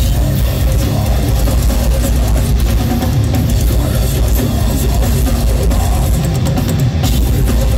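Deathcore band playing live at full volume, with distorted electric guitars over a pounding drum kit and heavy bass, heard from the audience.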